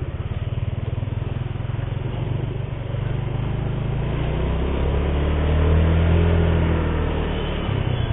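Motor scooter's engine running under way, then accelerating, its pitch and loudness climbing about halfway through before dropping back near the end as the throttle eases.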